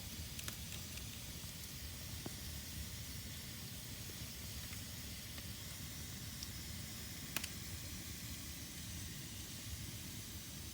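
Fire burning in a fireplace: a steady hiss over a low rumble, broken by a few sharp crackles, the loudest about seven seconds in.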